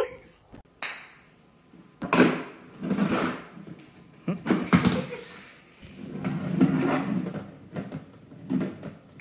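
Hollow plastic knocks, rattling and scraping from a golf putting mat's cup and ball-return tray as a cat paws into the hole. The clatter comes in irregular spells, starting about two seconds in.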